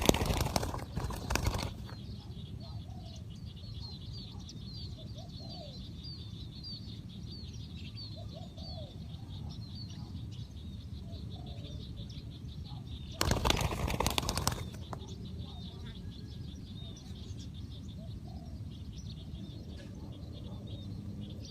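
Spotted dove wings flapping in two loud bursts, one at the start and one about 13 seconds in. Between them come faint low dove coos and rapid high chirping of small birds.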